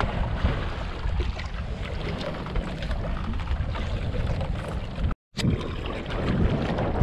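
Wind buffeting the microphone over open sea, with water sloshing around a small outrigger boat as a steady rumbling noise. The sound drops out for an instant about five seconds in.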